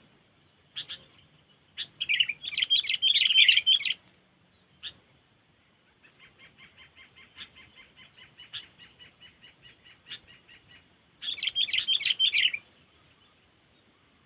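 Sooty-headed bulbul (kutilang) decoy bird calling: a few sharp single chips, two loud rapid chattering bursts, and between them a softer, even run of quick notes.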